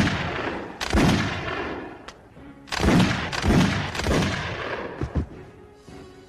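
Movie gunfight: about five loud handgun shots in the first four seconds, each with a long echoing tail, then two fainter shots just after five seconds in.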